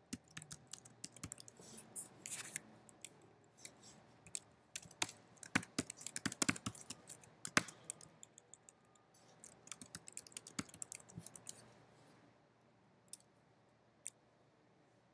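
Typing on a computer keyboard: quick, irregular runs of keystrokes that stop about twelve seconds in, followed by a couple of single clicks near the end.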